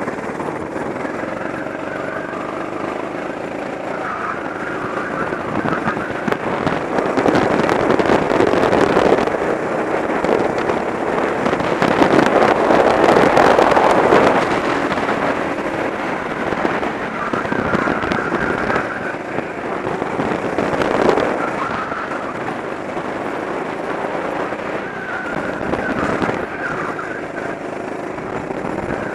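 Go-kart engine running under throttle, its pitch rising and falling with the corners and straights, heard from a camera mounted on the kart. It gets louder twice, about a quarter of the way through and again near the middle.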